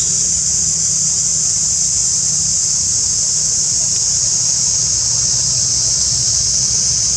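Steady high-pitched drone of insects in the forest, even and unbroken, over a low steady rumble.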